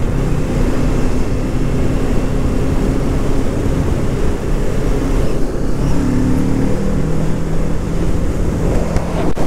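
Kawasaki Ninja 650's parallel-twin engine running steadily while the bike is ridden at road speed, under heavy wind noise on the microphone. The engine note shifts slightly about six seconds in.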